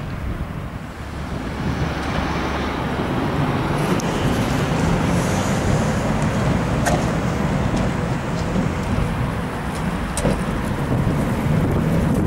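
Vintage electric tram approaching and rolling past close by: a steady rumble of wheels on rails that grows louder over the first couple of seconds, with a few sharp clicks along the way.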